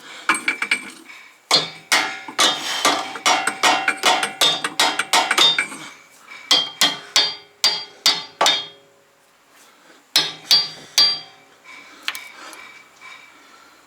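Hammer blows on a car's bent steel suspension link, in runs of several ringing strikes a second with short pauses between them, knocking the link free of its mount.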